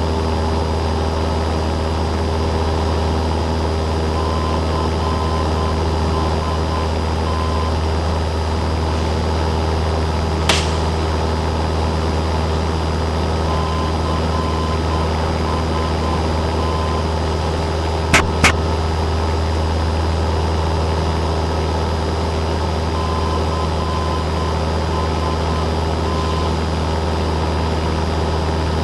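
Steady drone of a Cessna 172N's four-cylinder Lycoming piston engine and propeller in cruise, heard inside the cabin. There is a sharp click about ten seconds in and a quick double click around eighteen seconds in.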